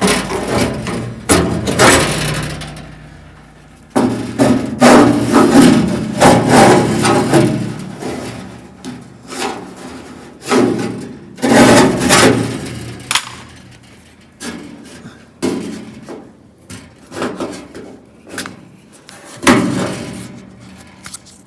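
Flat metal scraper blade scraping and chipping old sticky sealer off the steel seams of a truck cab, in irregular clusters of rough strokes with short pauses between them.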